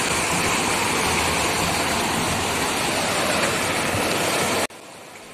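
Fast floodwater rushing in churning, turbulent waves, a loud, steady rush that cuts off abruptly about four and a half seconds in.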